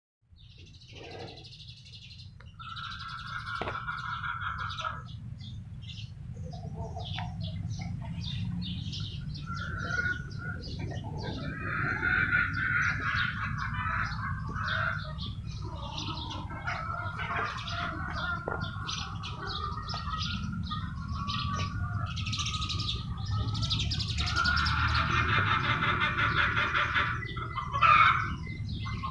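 Small birds chirping and twittering in a continuous chorus over a low steady rumble, with one short louder sound near the end.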